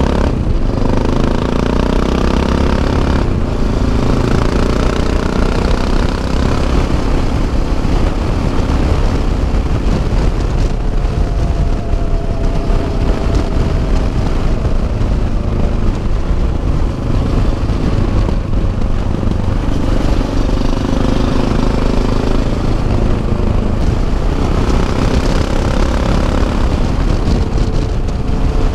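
Yamaha XT 660 Z Ténéré's single-cylinder four-stroke engine running while the motorcycle is ridden at road speed, with heavy wind rumble on the bike-mounted microphone. The engine note rises and falls a few times with the throttle.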